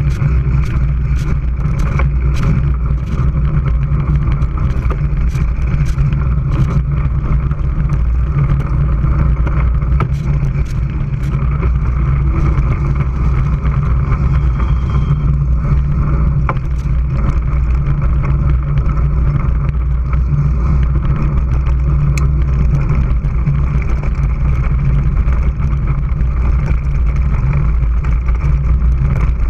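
Steady low rumble from a mountain bike's front-mounted camera as it rolls over a dirt forest track: tyre and trail vibration with wind on the microphone, plus scattered sharp clicks and rattles over roughly the first ten seconds.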